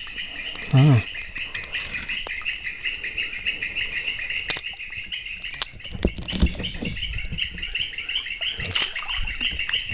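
A steady, rapidly pulsing high-pitched chorus of frogs and insects runs throughout. Over it comes the sound of fish thrashing in a hand net: sharp slaps and knocks, a cluster about halfway through and another near the end.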